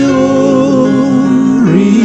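A male solo voice sings a Luo-language gospel hymn over soft instrumental accompaniment. He holds one long note with a slight vibrato, then drops in pitch near the end.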